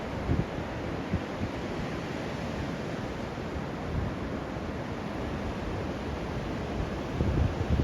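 Sea waves washing steadily onto a sandy beach, with wind buffeting the microphone in low gusts, most strongly near the end.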